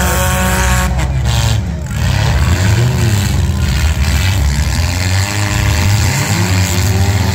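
Demolition derby compact cars' engines revving, their pitch rising and falling several times over a steady loud engine drone.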